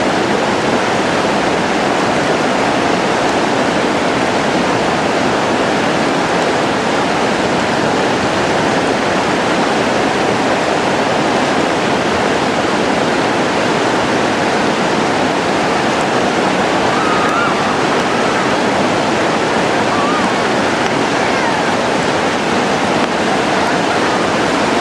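Steady rush of fast-flowing whitewater river rapids.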